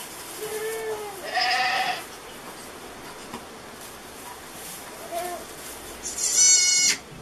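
Goats bleating: a nanny goat and her newborn twin kids. Two lower calls come in the first two seconds and a faint one a little after the middle, then a short high-pitched bleat near the end, the loudest.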